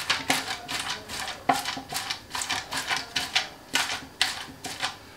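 A hot, flaky lachha paratha being pushed and patted from both sides by hand. Its crisp layers crunch and rustle in quick strokes, about three a second, as they are loosened and opened up.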